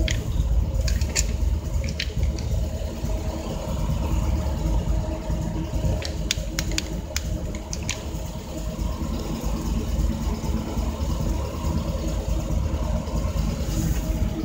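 Austin A35's BMC A-series four-cylinder engine running steadily at idle, heard from inside the cabin, with its cylinder head newly refitted. A few sharp clicks stand out near the start and again about six to eight seconds in.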